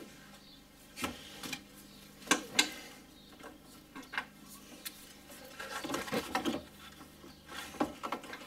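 Hands working at the bottom radiator hose and its worm-drive (Jubilee) hose clamp: scattered light clicks, knocks and rubbing, with two sharper knocks a little past two seconds in and a busier patch of rustling around six seconds.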